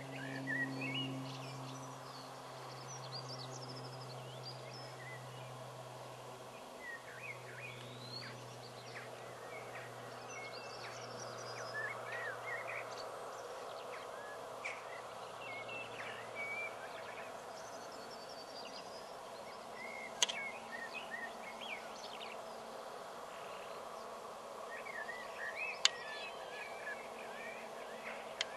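Small birds chirping and singing over a steady background hum. Three sharp single clicks of a training clicker come in the second half, the last just before the end.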